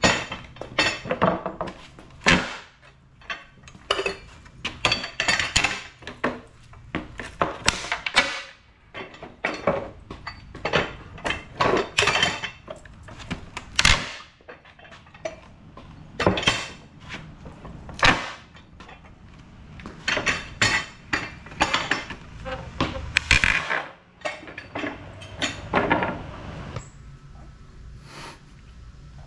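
Irregular clattering and knocking of wood and metal, with some clinks, as pallet boards and tools are handled and dropped.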